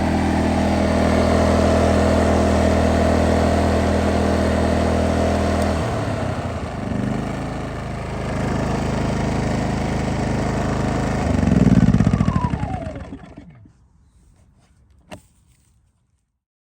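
An engine running steadily, then changing note, surging briefly and shutting down: it spins down with a falling whine and stops. A single sharp click follows near the end.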